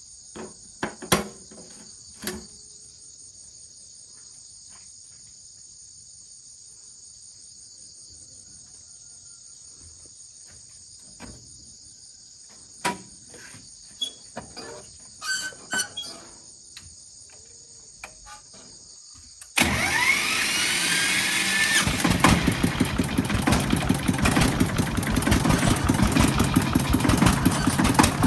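Insects chirping steadily, with a few scattered knocks and clicks. About two-thirds of the way in, an engine is started: a rising whine that catches a couple of seconds later into a steady, rapid chugging run.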